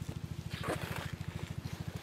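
A small engine running steadily nearby, a fast, even low thumping. A brief rustle comes about half a second in.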